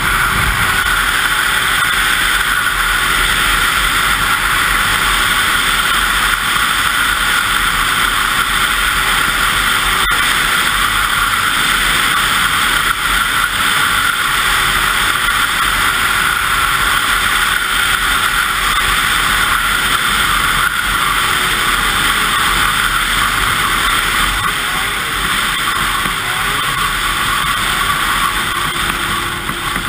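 Yamaha SX Viper 700 snowmobile's three-cylinder two-stroke engine running at a steady high pitch while riding at speed. It gets a little quieter near the end.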